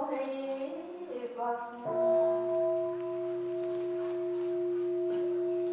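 Group chanting ends and, about two seconds in, a Buddhist temple bowl bell is struck once. It rings on as a steady, pure, humming tone.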